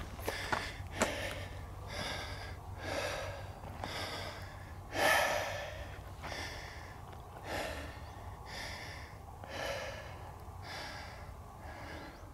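A person breathing hard while walking, with a breath about every second and the loudest about five seconds in. A steady low rumble of wind on the microphone lies beneath.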